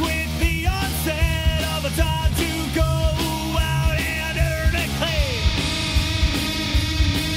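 Rock song with a singing voice over a steady drum beat; from about five seconds in the voice holds a long note over a brighter cymbal-like wash.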